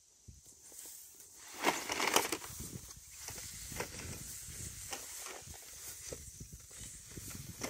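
Black polyethylene poly pipe being handled and dragged over dry grass: rustling and scraping, with a louder scrape about two seconds in and scattered light knocks and clicks after.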